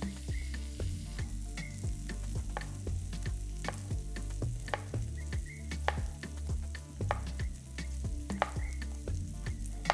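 Bell peppers and onions sizzling in a hot frying pan, with a utensil clicking and scraping against the pan two or three times a second as they are stirred.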